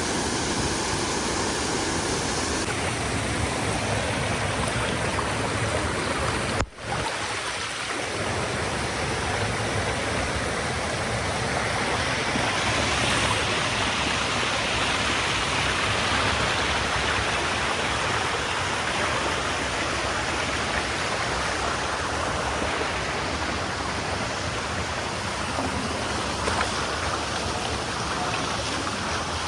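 Steady rush of water from a waterfall, with a brief break about seven seconds in.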